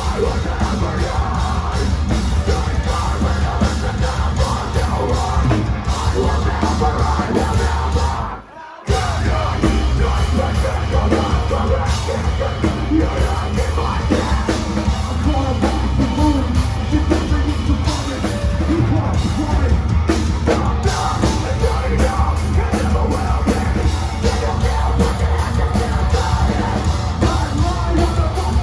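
Metalcore band playing live, with distorted electric guitars, bass guitar and drums under yelled, screamed vocals. The whole band stops dead for about half a second roughly eight seconds in, then crashes back in.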